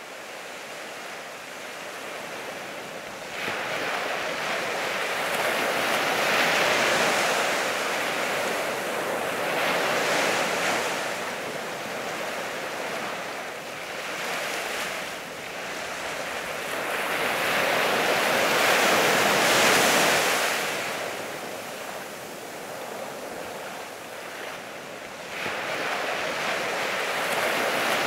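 Small lake waves washing onto a rocky, sandy shore, a steady rush that swells and falls back every few seconds.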